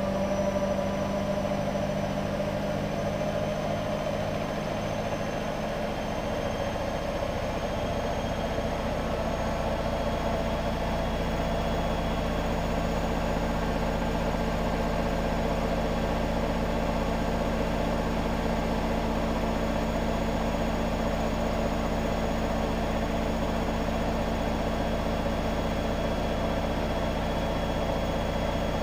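Hotpoint WM63 washing machine on its spin: a steady motor and drum whine that creeps up in pitch over the first several seconds, then holds even.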